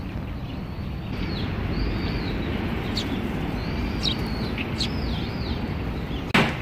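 Eurasian tree sparrows chirping, a series of short high chirps over a steady low background rumble, with one sharp click near the end.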